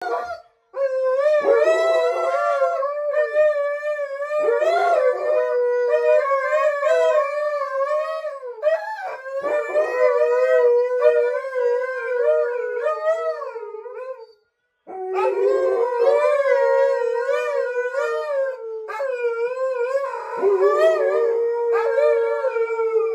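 Alaskan malamutes howling together: long, wavering howls from several dogs overlapping, the dogs in the room joining malamutes howling on a television. The howling breaks off briefly about fourteen seconds in, then starts again.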